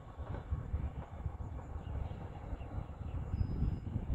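Wind buffeting the microphone in uneven gusts, over the faint rumble of a distant diesel-hauled Verde Canyon Railroad passenger train.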